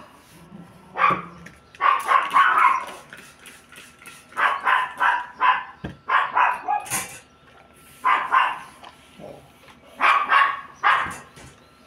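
A dog barking repeatedly, in clusters of several short sharp barks with pauses between.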